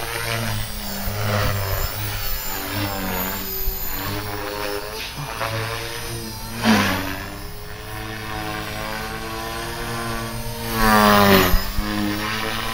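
Align T-Rex 450 Pro electric RC helicopter in flight: the whine of its motor and main rotor, the pitch dipping and rising as it manoeuvres. It swells loudly twice as it swoops past, about six and a half seconds in and again more strongly near the end.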